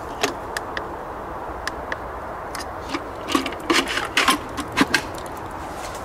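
Plastic button clicks and handling knocks on the timer control panel of a 12-volt automatic feeder: a few single clicks, then a quick run of louder rattling clicks from about three and a half to five seconds in, over a steady background hiss.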